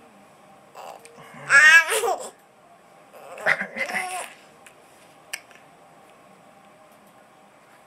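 Infant laughing in two bursts: a high-pitched, wavering laugh about a second in and a shorter one about three and a half seconds in.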